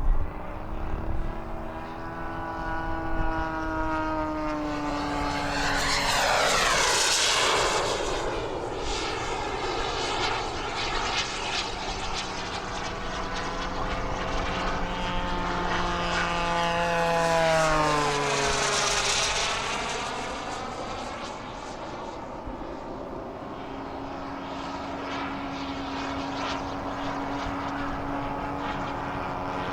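Radio-controlled propeller airplane flying, its engine a steady, high-pitched tone. It makes two close passes, about six and eighteen seconds in; each time it grows louder and the pitch drops as it goes by.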